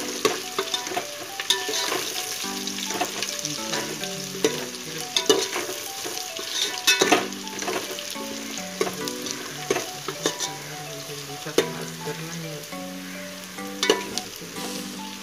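Sliced onions and whole spices sizzling as they fry in oil in an aluminium pot, stirred with a metal ladle that clicks and scrapes against the pot now and then. Background music with a plucked melody plays under it.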